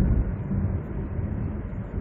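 Cabin noise of a SsangYong Chairman sedan with a 5.0-litre V8, heard from inside while it drives: a steady low engine hum mixed with road and tyre noise.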